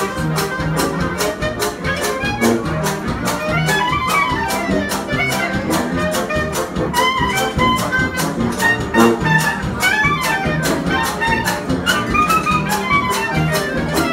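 Jazz orchestra playing live: a clarinet solo running over the band's rhythm section, which keeps a steady beat.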